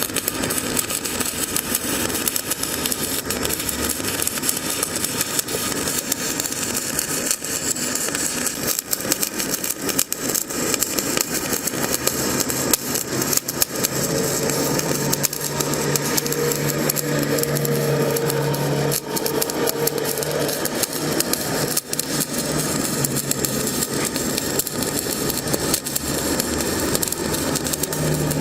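CO2-shielded wire-feed (MIG/MAG) welding arc crackling steadily as the bead is laid, with a low hum joining in for several seconds in the middle.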